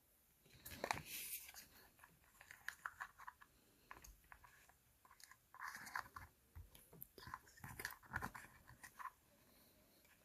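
Faint crinkling and clicking of small plastic packaging being handled and unwrapped, in irregular bursts of crackles.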